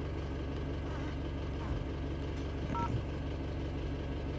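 Isuzu MU-X's diesel engine idling steadily, heard from inside the cabin. A short electronic beep from the touchscreen mirror dashcam sounds about three seconds in.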